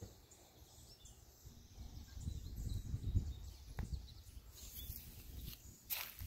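Outdoor ambience of wind rumbling on the microphone, swelling in the middle, with faint bird chirps and a sharp click near the end.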